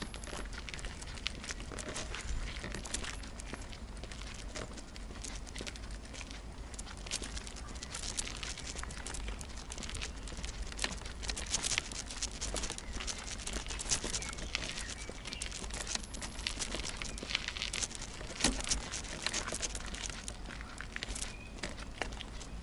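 Wicker bicycle basket and its wire cover creaking and rattling as the bike rides along: a steady run of small clicks and crackles over a low rumble.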